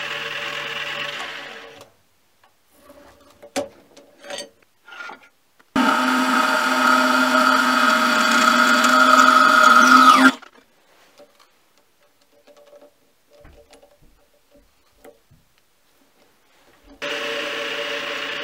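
Mini lathe running with a steady whine that fades out within the first two seconds. About six seconds in, a small metal-cutting bandsaw cuts a short piece of bar stock for about four seconds, growing louder and stopping suddenly. The lathe starts running again near the end.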